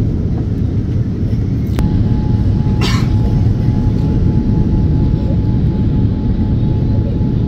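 Steady cabin noise of a jet airliner on approach with flaps extended: a dense low rumble of engines and airflow. About two seconds in, a click brings in a faint steady tone that holds, and a brief crackle follows a second later.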